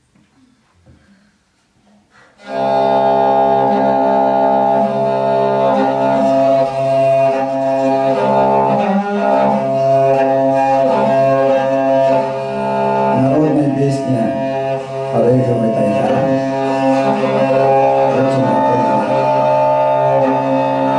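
About two and a half seconds in, a Tuvan bowed fiddle starts up and plays a steady low drone with a melody moving above it, broken only briefly a few times.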